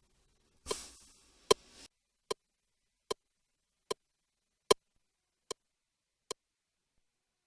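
Metronome click track ticking steadily, eight clicks about four-fifths of a second apart, with a short hiss under the first two.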